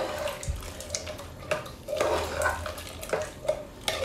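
A metal spoon stirring thick curry of chickpeas, yam and plantain in an aluminium pressure cooker, scraping through the food with a few knocks against the pot.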